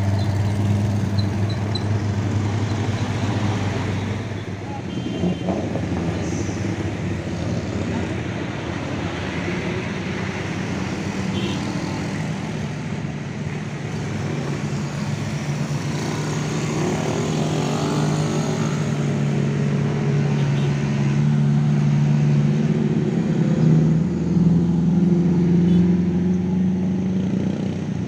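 Heavy truck's diesel engine labouring up a steep climb, a steady low drone whose note rises slowly through the second half.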